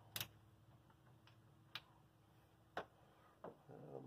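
Near silence broken by three sharp, faint metal clicks about a second apart as a socket on an extension is worked on the governor shaft of a small engine, turned to set the governor. A faint rustle of hand movement comes near the end.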